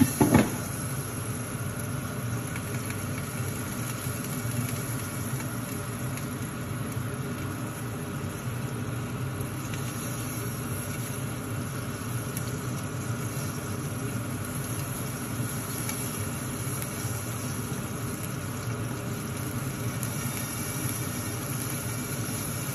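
Popcorn kernels and oil heating in a lidded frypan on a gas burner: a steady sizzling hiss with a low hum underneath, before any popping has started. A brief clatter right at the start as the pan and lid are handled.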